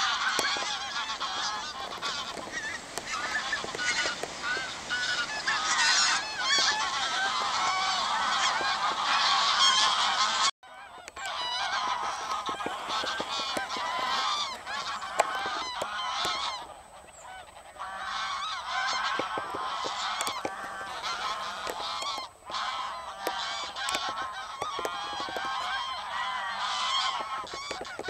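A large flock of greylag geese calling in flight: a dense, continuous clamour of many overlapping honks. It breaks off abruptly for a moment about ten seconds in and thins out briefly past the middle.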